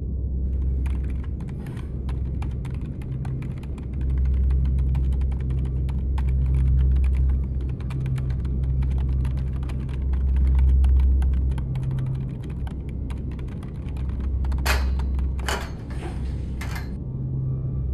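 Rapid typing on a computer keyboard, a dense run of clicks, over a loud, deep drone that swells and fades in slow waves. The typing stops about fourteen seconds in, and three louder, longer noises follow close together.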